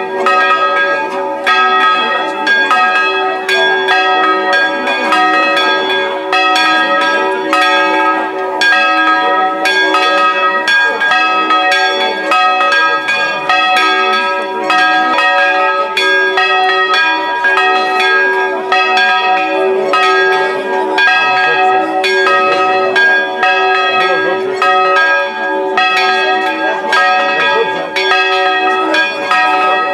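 Two church bells in a stone bell gable ringing a welcome peal, struck over and over without a pause, their tones overlapping and ringing on.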